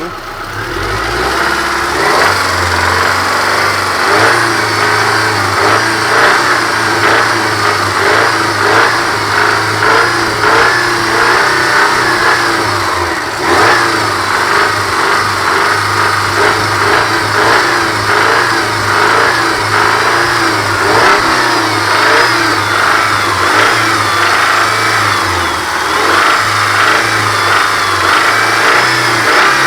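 Subaru EJ253 2.5-litre flat-four engine running at raised revs, with a repeating knock. The owner cannot find the cause of this knock at revs.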